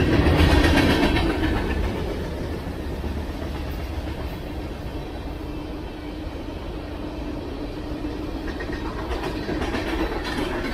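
Freight train cars (gondolas, tank cars and covered hoppers) rolling past, with a steady rumble of steel wheels on the rails. It is louder in the first two seconds, then settles to an even level.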